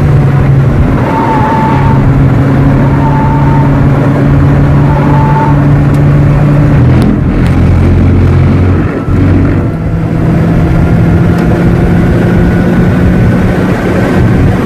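Lotus sports car's engine heard from inside the cabin while driving on track, running at steady revs. Its pitch drops about seven seconds in and climbs again around ten seconds in.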